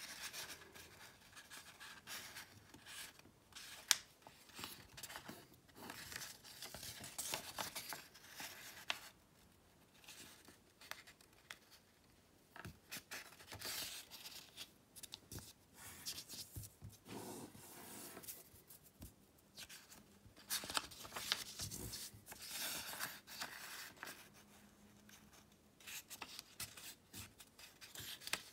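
A sheet of origami paper being folded and creased by hand: irregular crisp rustling and rubbing as fingers press and run along the folds, with a sharp click about four seconds in and a quieter lull around ten to twelve seconds in.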